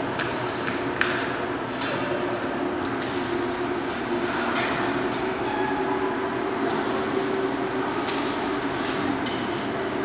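Steady mechanical drone with a constant low hum, broken by a few light clicks and knocks.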